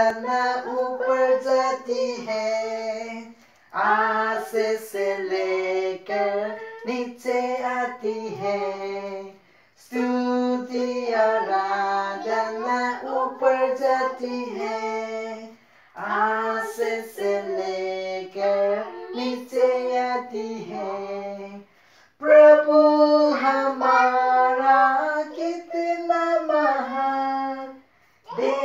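Unaccompanied singing by a woman's voice, in phrases of about six seconds with short breaks between them.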